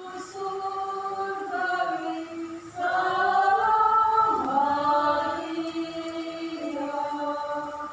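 Church choir singing a hymn in long held notes, growing louder through the middle of the phrase.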